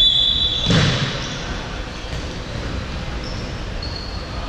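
Sports shoes squeaking on a wooden indoor court, with a hard thud of the futsal ball a little under a second in; a few more short squeaks near the end.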